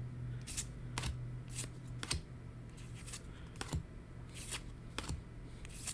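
Trading cards being flipped through one at a time, with about ten quick, crisp card-on-card flicks spaced irregularly over a steady low hum.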